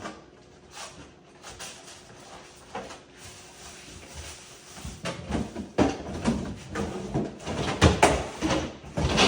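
Scattered knocks and clatter of household handling, sparse at first, then busier and louder from about five seconds in.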